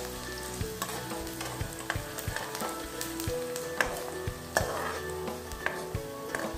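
Chopped onions sizzling as they fry in hot oil in a wok, stirred with a metal spoon that clicks and scrapes against the pan several times.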